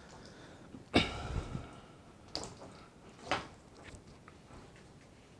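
Three short sharp knocks and clicks, the loudest about a second in, with faint quieter handling sounds between them.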